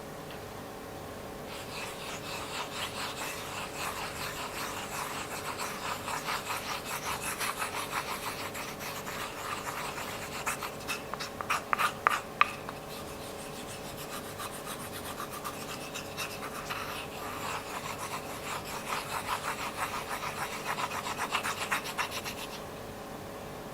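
Slime being mixed and scraped in a container, a quick run of rubbing, crackling strokes, several a second. A few louder, sharper crackles come about halfway through.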